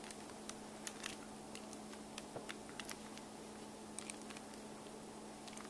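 Small screwdriver and tiny steel screws and plates of a toy metal construction kit being handled and screwed together: faint, irregular light clicks.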